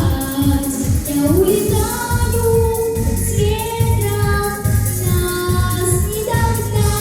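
A song sung with held notes over a backing track with a steady beat.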